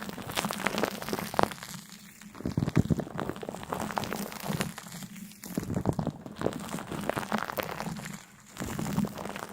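Crisp crinkling and crunching: clusters of rapid small clicks and crackles that come in bursts of about a second, with short lulls between them.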